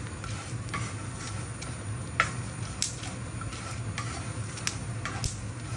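A spatula stirring and scraping melon seeds (char magaz) being dry-roasted on a flat non-stick tawa: scattered light clicks and scrapes a few times a second, over a steady low hum.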